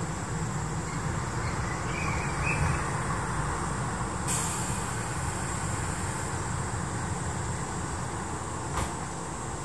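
Tobu 6050 series electric train standing at a station with its onboard equipment running: a steady low hum. A hiss in the upper range picks up about four seconds in, and a single short click comes near the end.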